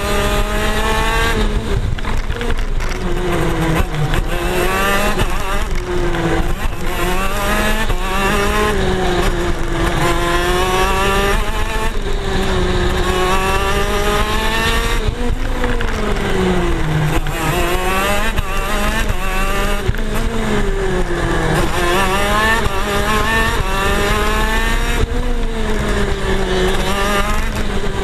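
Two-stroke engine of a KZ gearbox racing kart at racing pace, heard onboard. Its pitch climbs and drops over and over as the driver shifts through the gears and brakes for corners.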